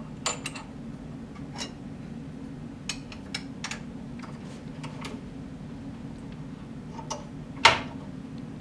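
Metal gauge blocks and a bench vise being handled: scattered light metal clicks and clinks, with a louder clatter near the end, over a steady low hum.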